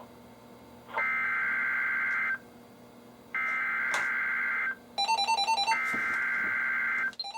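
NOAA Weather Radio SAME alert header: three bursts of digital data tone, each a little over a second long with about a second's pause between, signalling the start of an emergency alert, here a severe thunderstorm warning. Shortly before the third burst, a weather alert receiver starts a fast electronic beeping.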